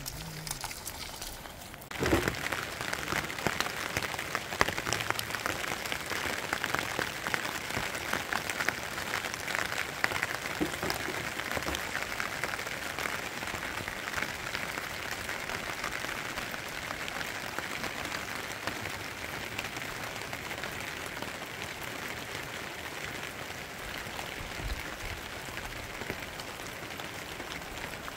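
Steady rain falling: a dense hiss of countless small drop impacts that starts abruptly about two seconds in and eases slightly toward the end.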